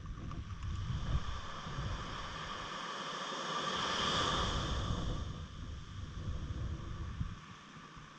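Wind buffeting the microphone in gusts, with a rush of hiss that swells to a peak about halfway through and then fades.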